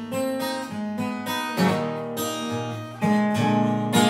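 Acoustic guitar playing a blues fill, with struck chords and ringing notes and no voice.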